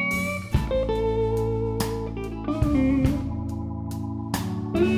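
Live electric blues band: a Les Paul-style electric guitar plays a lead line of long, sustained and bent notes through a Divided By 13 RPB 19/37 amp. Drum kit, bass and keyboard play underneath, with drum hits about once a second.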